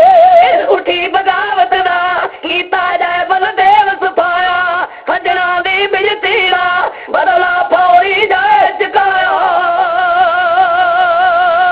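Singing voice in a Punjabi Sikh devotional ballad: melodic phrases with sliding pitch, then from about the middle one long note held with a wide, even vibrato.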